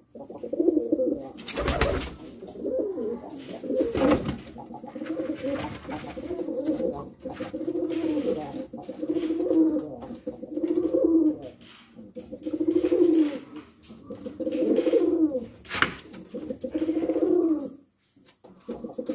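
Domestic pigeons cooing over and over, a low rolling coo about every second or two, with a few short sharp noises about two, four and sixteen seconds in.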